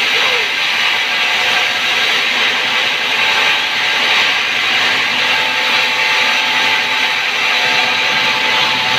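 Large vertical band saw ripping lengthwise through a big log as workers feed it through by hand: a loud, steady sawing noise of the blade in the wood.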